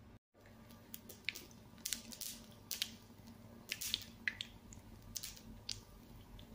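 Mustard seeds popping in hot coconut oil in a nonstick pan: a dozen or so irregular sharp crackles over a faint sizzle. The popping is the cue that the tempering is done and the oil is ready for the onion.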